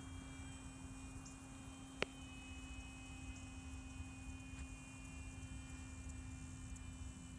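Faint, distant RC model airplane motor giving a steady high whine, over a steady low hum. A single sharp click about two seconds in.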